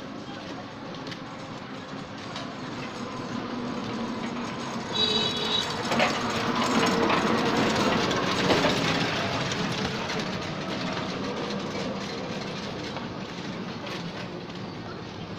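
A three-wheeled auto-rickshaw passing close by on a dirt road, its rattle swelling to its loudest in the middle and then fading as it drives away.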